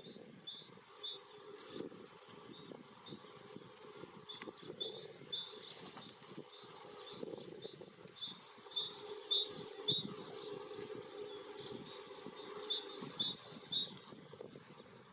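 A small songbird singing: runs of quickly repeated, high two-note phrases, about four runs with short pauses between them, over a steady low background hum.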